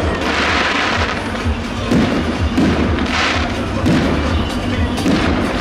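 Fireworks bursting overhead: repeated low thumps, with two longer stretches of crackling as glittering stars go off, about half a second in and about three seconds in. Music plays throughout.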